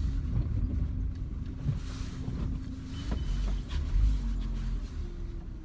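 Car engine and road noise heard from inside the cabin while driving: a steady low rumble with a faint engine hum that shifts slightly in pitch.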